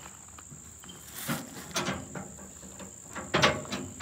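Metal clanks and rattles from the deck lock of a tilt trailer being released. A few sharp knocks come from about a second in, and the loudest cluster falls about three and a half seconds in. A steady high insect buzz runs underneath.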